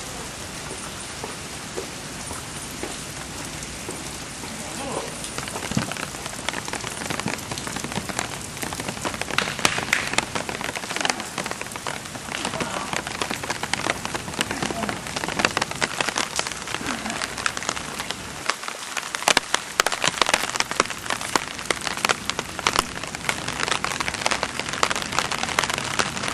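Steady rain falling, a dense hiss full of sharp raindrop ticks that grows heavier after about four seconds.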